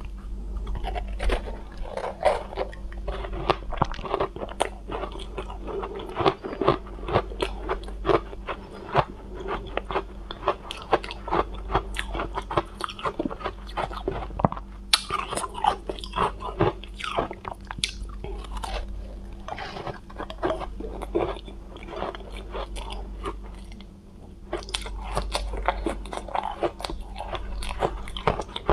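Close-miked biting and chewing of soft frozen cotton ice coated in matcha and milk powder: a dense run of crisp crunches and crackles as the ice breaks between the teeth, with a short lull about three-quarters through.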